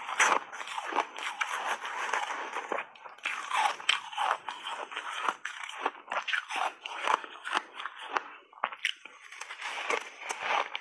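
Close-miked shaved ice crunching: a metal spoon digging through matcha-dusted shaved ice and mouthfuls of the ice being crunched and chewed, a dense, irregular crackle with brief pauses.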